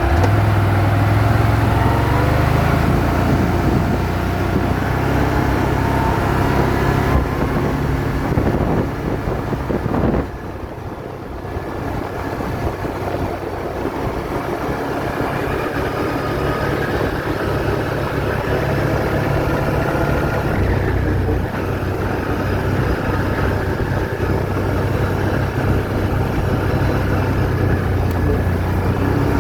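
ATV engine running under way. It eases off about a third of the way in and picks up again about two-thirds of the way through.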